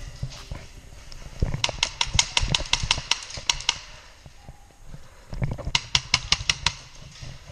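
Airsoft rifle firing rapid shots, about six a second, in two strings: one of about two seconds starting a second and a half in, and a shorter one near the end.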